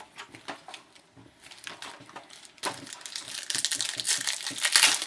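Packaging crinkling and tearing as a trading-card box is worked open. It starts with a few faint clicks, and about halfway through it becomes a dense, loud crackle.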